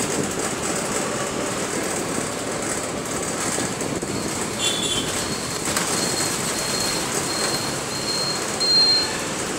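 Ride noise inside a moving city bus: steady engine and road noise with rattling. A thin high-pitched squeal comes and goes in short stretches in the second half, loudest near the end.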